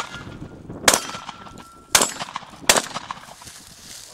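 Three shotgun shots, the first about a second in and the next two following at just under a second apart each.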